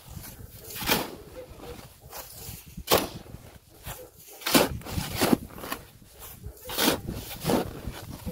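Snow crunching in separate strokes, roughly one a second, as a path is trampled and shovelled through deep snow.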